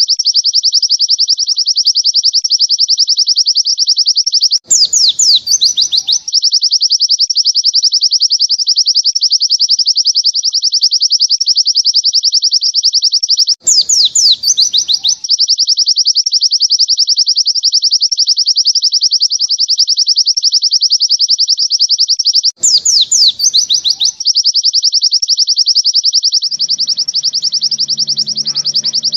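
White-eye (pleci) song in the long 'nembak' style: an unbroken, very fast, high-pitched trill, broken three times, about nine seconds apart, by a short downward-sweeping phrase, as if one recording were looped. A low drone joins in near the end.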